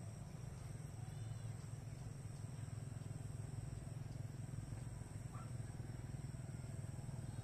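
Steady low hum with a thin, steady high-pitched whine above it, and a faint short chirp about a second in and another around five seconds in.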